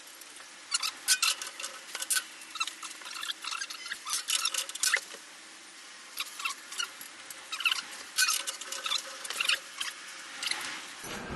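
Irregular small clicks, taps and scrapes of bolts, a hex key and metal parts being handled while working on a bandsaw's table fittings, with a short lull around the middle.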